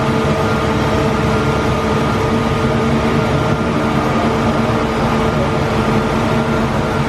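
Mazak Integrex i630V/6 vertical turning/milling center running under power: a steady machine hum with several steady whining tones over it.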